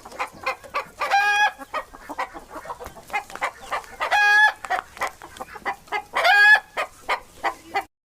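Hen clucking in quick short calls, broken three times by a longer drawn-out call, about a second in, past four seconds and past six; the clucking cuts off suddenly just before the end.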